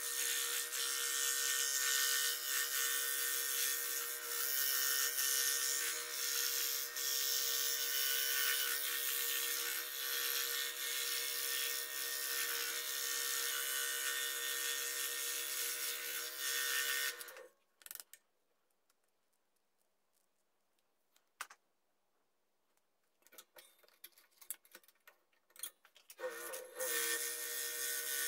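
Scroll saw running, its blade cutting wood along a gear-toothed wheel pattern: a steady motor hum with the hiss of the blade in the cut. It stops a little over halfway through, leaving near silence with a few faint clicks. It starts up again near the end with a short rise in pitch.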